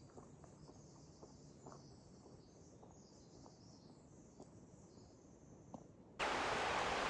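Faint outdoor ambience with soft scattered ticks and a high insect hum. About six seconds in, a loud, steady rushing noise cuts in abruptly.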